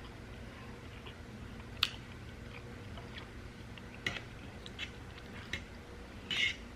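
Close-miked eating sounds: a person chewing food, with a few short, sharp mouth clicks and a louder wet smack about six and a half seconds in.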